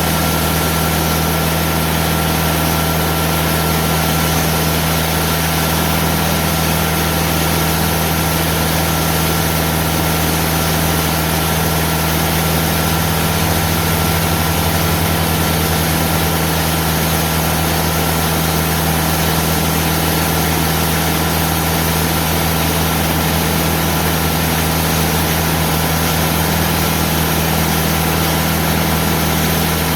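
TimberKing diesel band sawmill running steadily under load as its band blade cuts very slowly through hard, aged live oak, with a thin high tone above the engine's steady hum.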